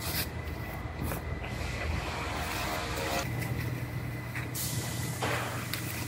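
Thin plastic masking sheeting crinkling and rustling as it is handled, with masking tape being pulled and pressed down along a panel edge in several sharp rasps and tears, over a steady low hum.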